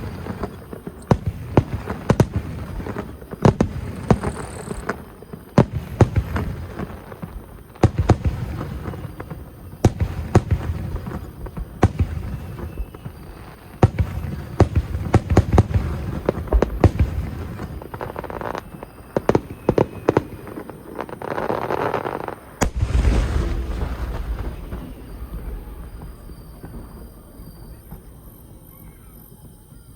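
Fireworks going off in rapid succession: sharp bangs and crackling shells, with one large deep boom about 23 seconds in, after which the sound dies away to a low rumble and echo.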